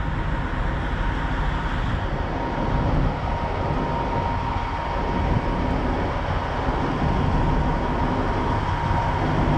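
Steady low rumble of an idling heavy diesel truck, with a thin steady high tone running through it.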